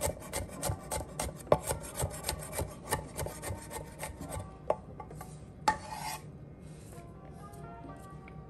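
Chef's knife mincing garlic on a wooden cutting board: rapid, even strikes of about four a second that thin out and stop about four and a half seconds in. A short scrape of the blade follows near six seconds, then only faint background music.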